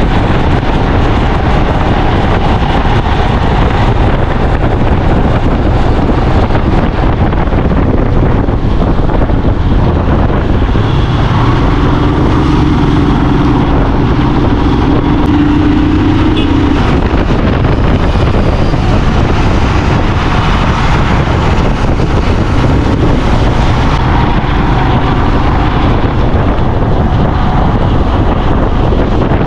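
Motorcycle being ridden, its engine running under heavy wind noise on the microphone. A steady engine note stands out for a few seconds midway.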